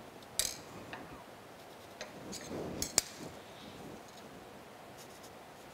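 Light taps and clinks of a steel rule and marker handled against a steel plate on a steel bench top while hole positions are marked out. Sparse small clicks, with one sharp click about three seconds in.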